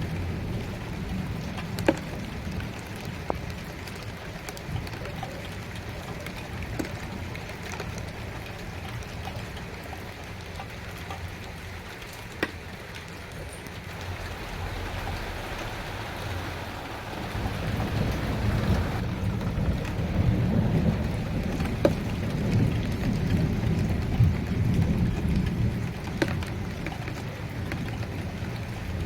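Steady rain falling, with single drops hitting a surface in sharp taps. A low rumble of thunder swells up in the second half and fades again near the end.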